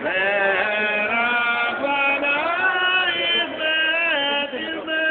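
A single voice chanting a Jewish wedding blessing in Hebrew, in cantorial style, with long held notes that slide and bend in pitch.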